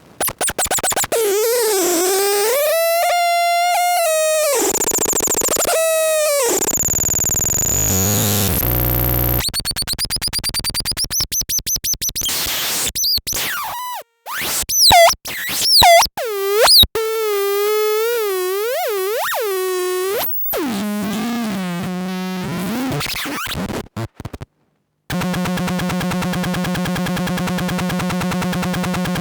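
Lefty's Sound Lab 'rumble noise' analog noise synth and fuzz pedal making glitchy electronic noise: pitched tones that glide and wobble, rapid stuttering clicks and abrupt cut-outs. Near the end it settles into a steady buzzing drone.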